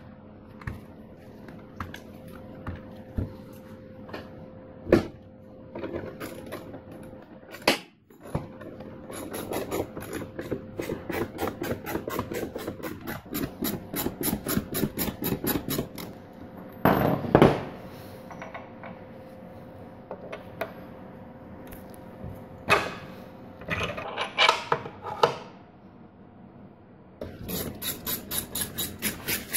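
A ratchet clicking in quick runs, several clicks a second, as a scissor jack is cranked to lift the rebuilt Honda C90 engine into its frame. Between the runs come separate metal knocks and clunks from the engine and tools being handled.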